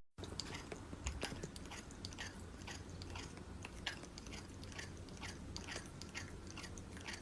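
A pet chewing crunchy food: short, faint crunches, two or three a second.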